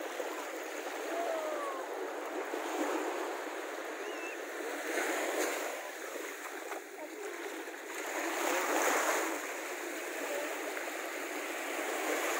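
Small sea waves washing in at the shoreline, the wash swelling louder a few times, with splashing as a child wades through the shallows.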